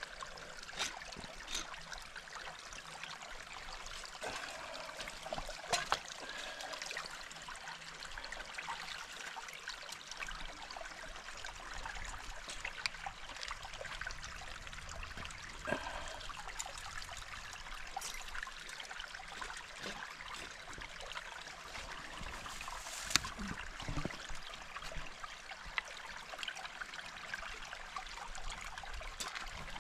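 Brook water trickling and running steadily, with several short knocks and clicks scattered through, the sharpest about two-thirds of the way in.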